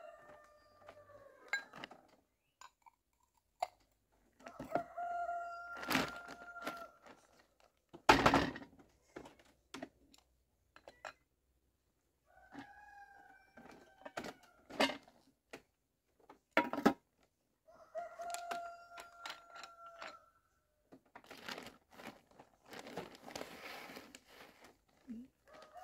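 A rooster crowing about four times, each crow a level-pitched call of a second or two. Between the crows come a few sharp knocks; the loudest is about eight seconds in.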